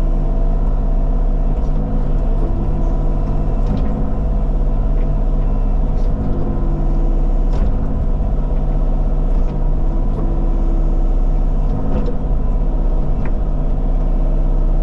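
Diesel engine of a compact Bobcat machine running steadily under working load, with a few sharp metallic clanks from the machine's bucket and tracks.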